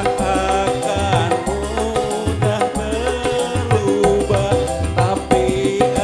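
Live campursari band playing: a keyboard melody over kendang hand drums and bass, with a man singing into a microphone.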